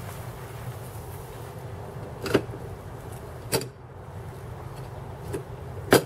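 Three sharp knocks over a steady low background rumble, about a second apart and the last one the loudest, as a poly-bed yard dump cart is maneuvered and its parts clunk.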